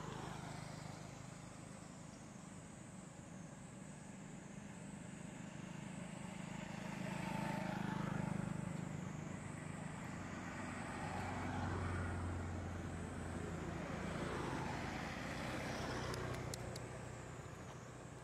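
Road traffic passing by: vehicles swell and fade one after another, loudest about eight and twelve seconds in.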